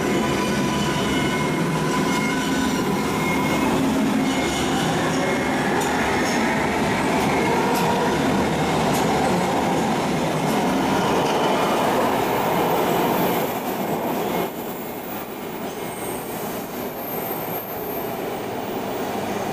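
MARTA rapid transit train pulling out of an underground station platform, its cars running past with a steady, loud rumble. The noise drops off abruptly about fourteen seconds in.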